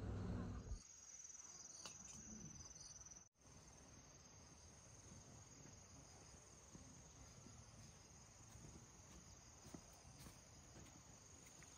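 Faint steady high-pitched trilling of insects, with a few small ticks and rustles. A louder low rumble dies away in the first second, and the sound cuts out completely for an instant a little over three seconds in.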